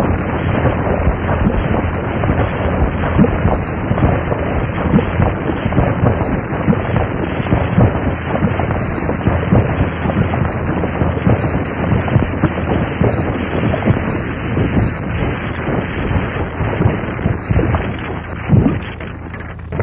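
Harsh noise music made from guitar, voice, metals, tapes and electronics: a loud, dense wall of crackling, rumbling noise that thins slightly near the end, where a few sharper low hits stand out.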